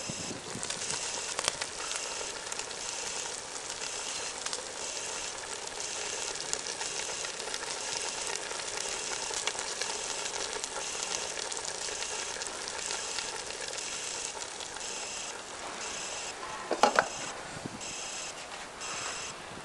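Food frying in a pan on a homemade solar cooker: a steady sizzle, with a sharp knock about 17 seconds in.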